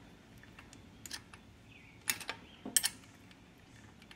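Light metallic clicks and clinks of a small open-end wrench being handled, a few scattered taps with most of them bunched about two to three seconds in.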